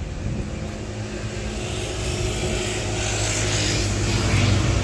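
A motor vehicle's engine running steadily, growing slowly louder.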